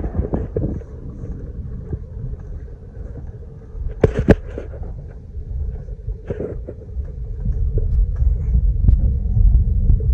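Cabin noise of a 4x4 vehicle crawling over a rough dirt trail: a steady low rumble of engine and tyres, with sharp knocks from jolts over bumps, two close together about four seconds in and another a couple of seconds later. The rumble grows louder over the last few seconds.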